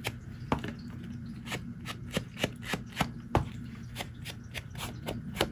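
Foam ink blending tool dabbing and brushing ink onto the edges of a paper envelope: a run of short, soft taps and scuffs, about three or four a second.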